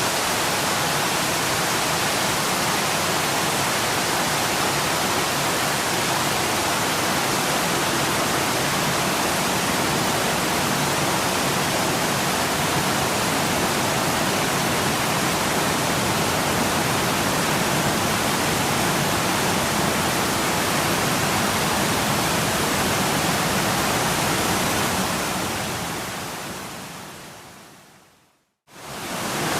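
Waterfall rushing steadily. Near the end it fades out to a moment of silence and then comes back in quickly.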